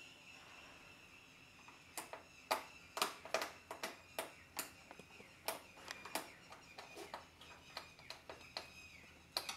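Hand screwdriver driving a screw into a heater's plastic side cover: a string of sharp, irregular clicks, about two a second, starting about two seconds in.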